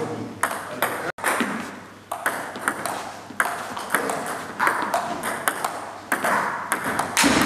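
Table tennis rally: the ball clicking sharply off rubber bats and the table in quick back-and-forth strokes, about two a second, with more ball clicks from a second table rallying in the same hall.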